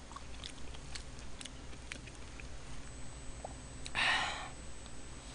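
Eating sounds: faint clicks of a spoon against a bowl and small mouth noises. About four seconds in comes a half-second breathy rush of air at the mouth as a hot spoonful of rice and stew goes in.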